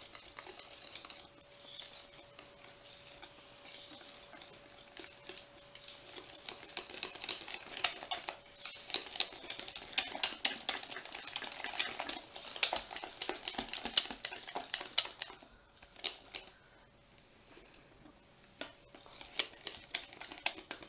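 Hand whisk beating thick chocolate brownie batter in a mixing bowl, its wires clicking and scraping against the bowl in quick strokes, with a short lull about three quarters of the way through.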